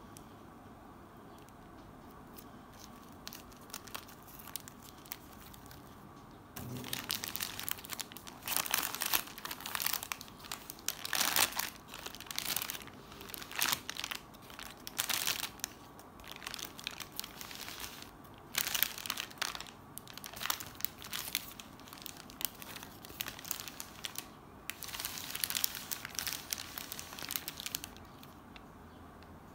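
Paper burger wrapper crinkling as it is unfolded by hand, in irregular bursts starting about six seconds in.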